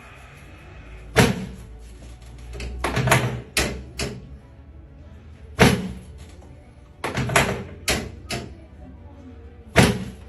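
Chiropractic adjusting table giving a series of about ten sharp thunks at irregular spacing as the patient is adjusted, some single and some in quick pairs.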